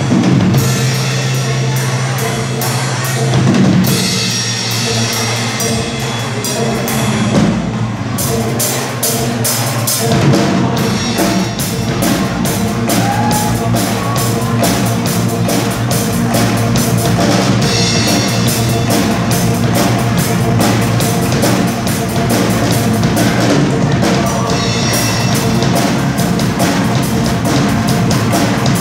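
Drum kit played over a band backing of sustained bass and keyboard tones. The drumming is sparse for the first ten seconds or so, then settles into a dense, busy groove.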